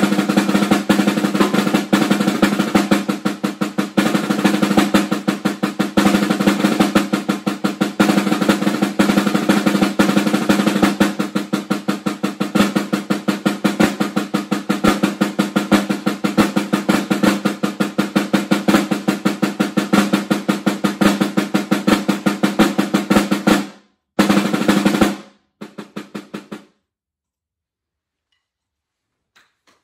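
Metal-shell snare drum played with sticks in a fast, continuous etude passage full of rolls. Near the end it breaks off briefly, comes back for a short loud burst, then a few softer strokes, and stops.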